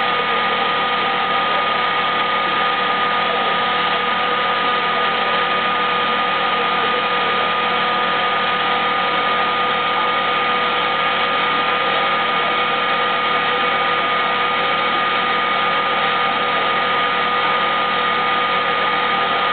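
Machinery of a vacuum distillation used-oil re-refining unit running: a loud, unchanging mechanical hum with a constant high whine.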